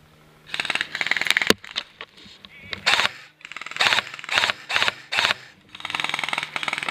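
Footsteps crunching through dry leaves and brush, with foliage swishing, as a player moves quickly through woods. One sharp snap comes about a second and a half in.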